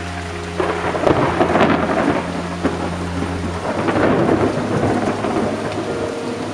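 A thunderclap over steady rain. It breaks with a crackle about half a second in, then rolls on loudly for several seconds before easing.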